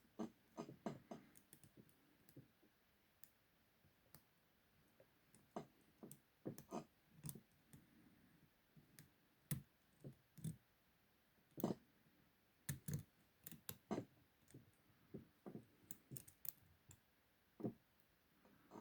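Faint, irregular clicks and ticks of a lock pick working the pins of a large six-pin Tooltech padlock held under a tension wrench, single-pin picking.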